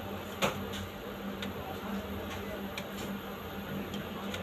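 Wide-format copier humming steadily as a large drawing sheet feeds through it, with one sharp click about half a second in and a few fainter ticks after.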